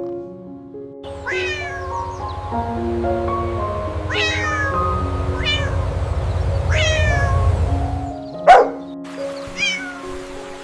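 A cat meowing about five times, each meow falling in pitch, over gentle background music of slow held notes. A low rumble sits under the first two-thirds, and one short, loud sharp sound comes about eight and a half seconds in.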